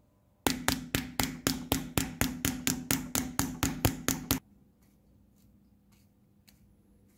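A small hammer tapping a punch to drive a brass part onto the steel shaft of a clock gear resting on a metal block: about sixteen quick, even metallic taps, roughly four a second, that stop about four seconds in. Faint handling clicks follow.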